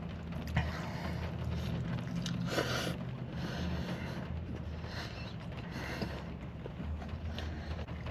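Steady low hum inside a parked car's cabin, with soft chewing and a short noisy burst about two and a half seconds in.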